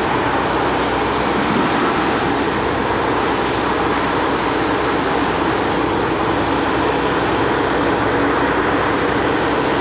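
A thick, aerated jet of water rushing steadily out of a borehole's discharge pipe as the well is blown out with compressed air, a loud even rush with a steady low hum under it.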